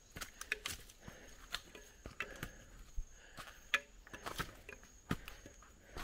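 Jungle ambience: a steady high-pitched insect drone under many irregular light clicks and pattering taps, with a few short low animal notes.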